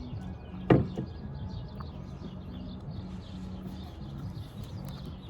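Birds chirping over and over in the background, with one sharp knock about a second in.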